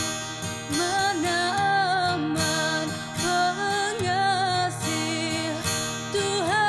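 A young female singer singing a slow song into a microphone, holding long notes that glide between pitches, over instrumental accompaniment.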